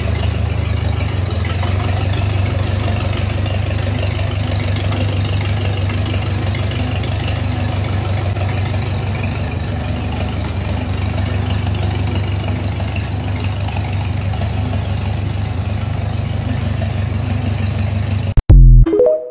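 1942 Ford 2N tractor's four-cylinder flathead petrol engine running at a low, steady speed as the freshly tuned tractor is driven slowly on its test run. Near the end the sound cuts off suddenly and a brief loud burst follows.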